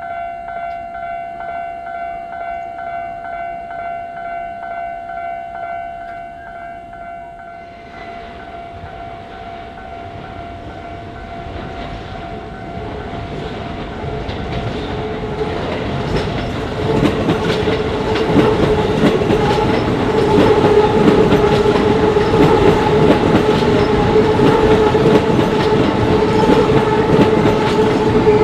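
Japanese railway crossing alarm ringing its pulsing electronic bell. About eight seconds in the bell gives way to a train approaching, its rumble building and turning loud and steady with wheel clatter and a humming tone as it passes over the crossing.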